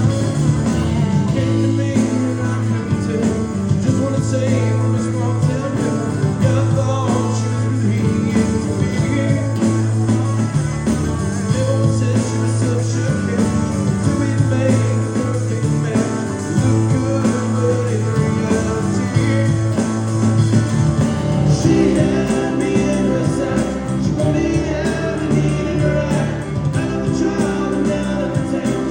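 Live band playing a country rock song: electric guitar over a steady bass line and drums.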